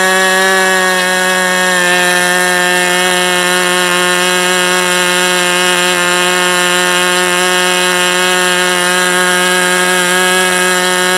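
OS 32F two-stroke glow engine on its first run, spinning a 10x6 propeller at high speed, about 10,800 rpm, with a steady, loud, high buzz.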